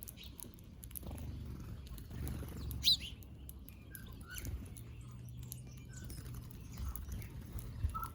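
Small birds chirping while feeding: scattered short calls, with one loud, sharply rising chirp about three seconds in, over a low rumble.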